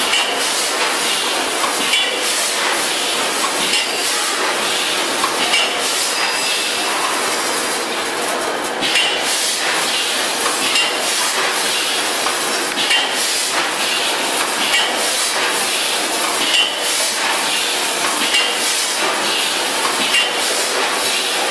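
VFS5000FS vertical form-fill-seal packing machine running: a steady mechanical clatter with a sharp metallic clack about once a second as it cycles.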